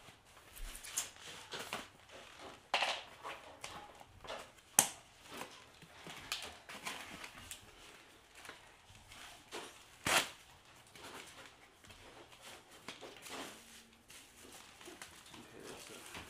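Plastic and foam packaging rustling and crinkling as it is pulled off a folded e-bike, with a few sharp snaps and clicks scattered through.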